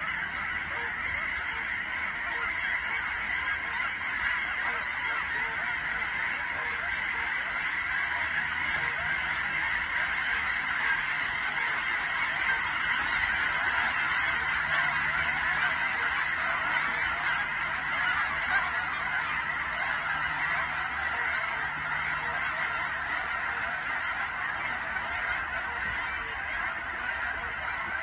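A huge mixed flock of geese (Canada, cackling and snow geese) honking all at once in a dense, continuous din of overlapping calls. It swells a little in the middle.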